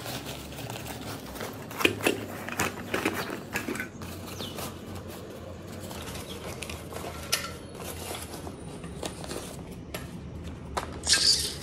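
Handling noise from a small portable butane camping stove being turned over and shown: scattered light clicks and knocks, a cluster of them about two to four seconds in, and a louder brief rustle near the end.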